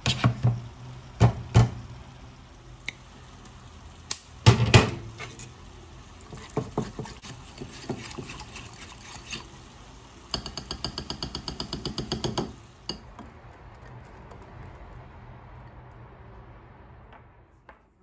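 Coil whisk beating yogurt in a glass bowl, with a run of quick, even clinking strokes against the glass a little past the middle. Before it come loud knocks and clinks of the glass bowl and utensils on the worktop, loudest about a second and about four and a half seconds in.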